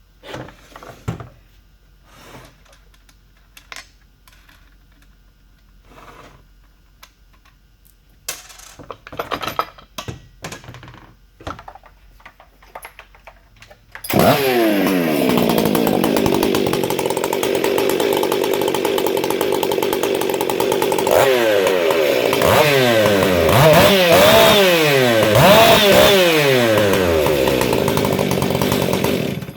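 Modified Stihl MS 661 chainsaw with a buckshot muffler: a few handling clicks and knocks, then the engine starts about halfway through and runs loud, is revved up and down several times in the last part, and cuts off suddenly near the end.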